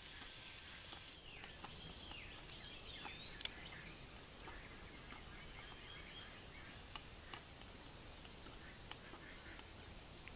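Hoof pick clicking and scraping against a Welsh pony foal's hind hooves as they are cleaned: a few scattered sharp clicks, the loudest about three and a half seconds in, over a steady high hiss. A few faint bird chirps in the first few seconds.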